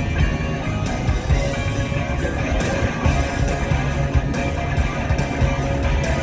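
Background music: a strummed guitar track with a steady beat.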